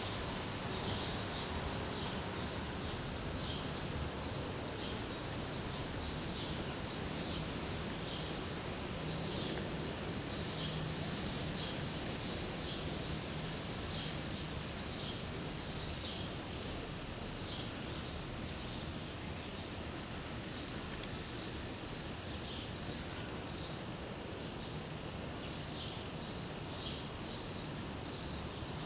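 Steady outdoor background noise with small birds chirping: short high chirps come one or two a second, with a single brief knock about 13 seconds in.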